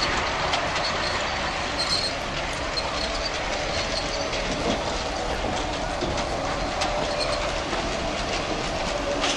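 Garden-scale model train running on outdoor track: a steady whir of its motor and wheels rolling on the rails, with occasional light clicks.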